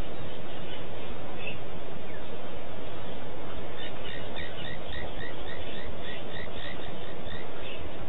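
Steady hiss from an outdoor wildlife camera's microphone. About four seconds in, a small animal's chirping call joins it: about a dozen short chirps at roughly four a second, stopping near the end.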